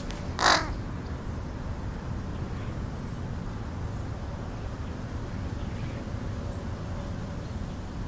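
American crow right by the microphone giving one short, harsh caw about half a second in, over a steady low background rumble.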